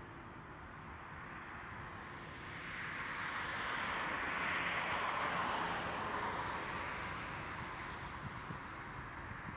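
Boeing 767-300 jet engines heard as a rushing roar that swells to a peak about halfway through and then fades as the airliner passes, with wind noise on the microphone.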